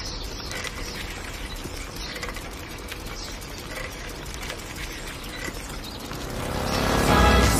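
Bicycle being pedalled: a steady run of light mechanical ticking and small squeaks from the chain and pedals. Near the end a louder, pitched sound swells up over it.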